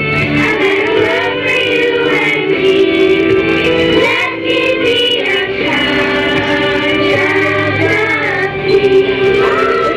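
A children's choir singing, many voices holding sustained notes together.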